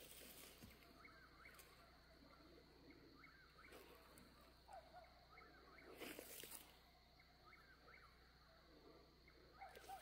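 Faint night-time animal calls: a short, wavering chirp repeated every second or so, with a brief rustle about six seconds in.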